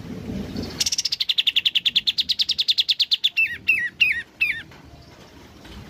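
Kapas tembak bulbul singing: a fast rattling trill of about two and a half seconds, then four quick slurred whistles that each fall in pitch.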